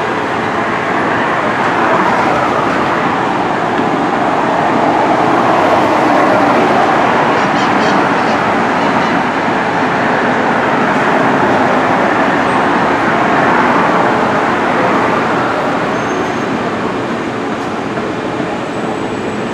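A train rolling past with a steady rumble that builds over the first few seconds, holds through the middle and eases off near the end.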